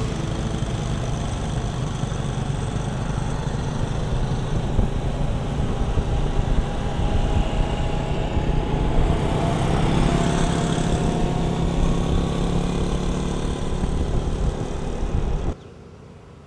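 Motorbike engines running in heavy road traffic, heard from a moving motorbike, with a dense, steady rumble. The sound drops away suddenly about a second before the end.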